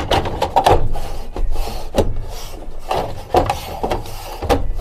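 Irregular knocks and scraping as the MaxxFan roof vent's interior frame is handled and pushed into place in the wooden frame around the roof opening.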